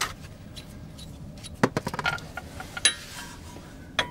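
Sharp metallic clinks and knocks as a steel bolt is worked into the bottom of the strut fork on a car's front suspension, a few at a time with the loudest a little over halfway through.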